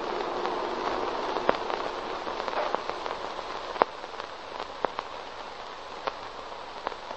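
Crackle and hiss of an old recording: a steady hiss scattered with irregular pops and clicks, a few of them sharper, as on a worn vintage film soundtrack.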